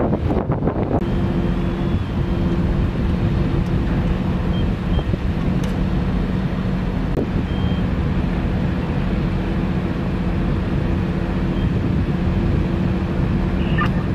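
Fire engine's diesel engine running steadily: a low rumble with a constant hum. A few short high beeps sound in the middle.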